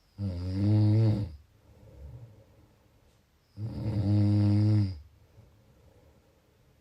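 A sleeper snoring in a steady rhythm: two long, pitched snores about three and a half seconds apart, each lasting a little over a second, with a faint breath between them.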